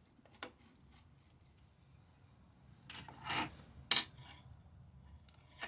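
Handling noises from working on a chainsaw at the bench: a couple of short scraping rubs about three seconds in, then one sharp click a second later.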